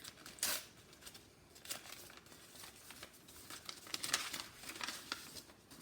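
Wrapping being crinkled and torn by hand while a package is unwrapped, in irregular rustling bursts.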